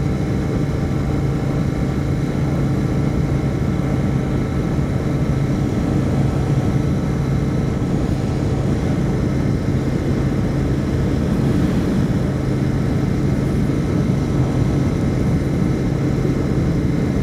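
Royal Enfield Continental GT 650's parallel-twin engine cruising steadily under way: an even drone that holds one pitch, with road and wind noise.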